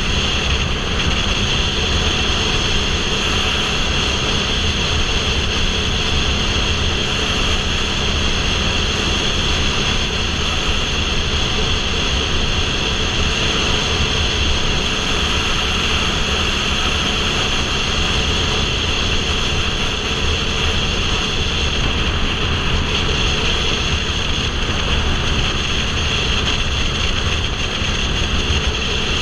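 Motorcycle cruising steadily at highway speed: the engine's drone mixed with a steady rush of wind over the microphone, with no change in speed or gear.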